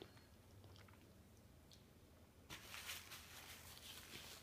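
Near silence, then about two and a half seconds in a faint, running rustle: a paper napkin rubbed across the mouth.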